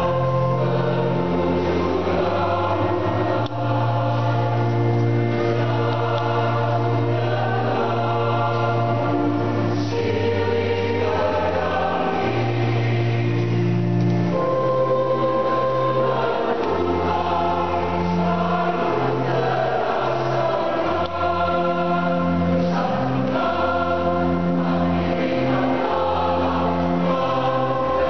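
Mixed choir of men and women singing in parts, moving through long held chords at a steady level.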